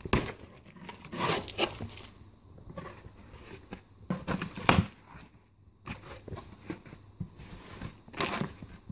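Cardboard shipping box being opened by hand: packing tape tearing and the flaps scraping and rustling as they are pulled back, in several irregular bursts with short quiet gaps.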